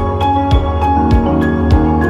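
Background music: sustained keyboard notes over a steady beat of about one and a half thumps a second.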